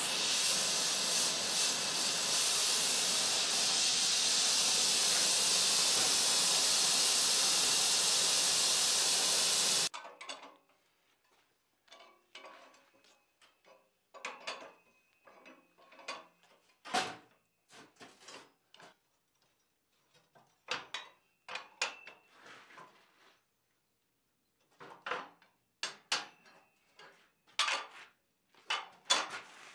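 Gas torch flame hissing steadily while heating a steel tenon, cut off abruptly about ten seconds in. It is followed by scattered light clinks and clanks of steel tools and blocks set down on a steel fabrication table, a few of them briefly ringing.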